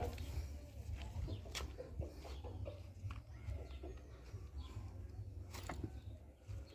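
Chickens clucking faintly over a steady low rumble, with a few sharp clicks.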